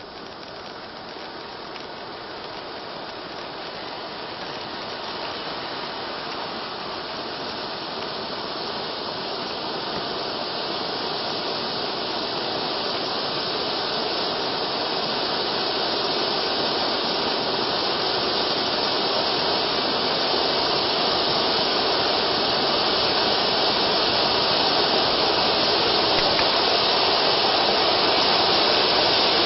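Panda 'Lucifer' silver ground fountain firework burning: a steady spraying hiss that grows gradually louder as the fountain builds up.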